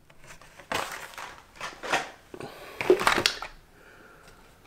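Hot Wheels cardboard-and-plastic blister cards rustling and scraping as they are handled and shuffled, in three spells of rustling, the loudest about three seconds in.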